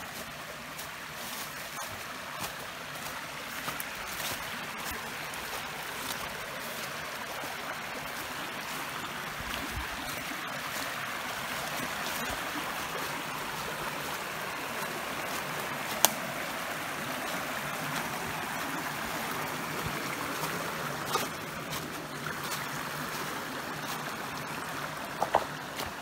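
Small forest stream rushing steadily over rocks and a low cascade, a little louder in the middle. A few sharp clicks, one standing out about two-thirds of the way through.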